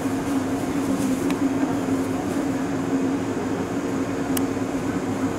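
Izukyu 2100 series 'Resort 21' electric train, a steady hum with an even low tone, with two faint clicks.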